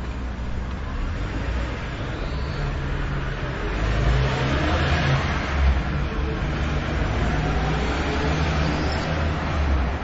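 A car driving past close by: engine and tyre noise build up to their loudest about halfway through, over a steady low engine hum.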